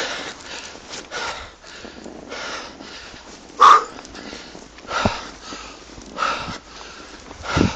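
A bikejoring rider breathing hard with effort close to the microphone, about one breath every second and a quarter, the strongest a little before the middle.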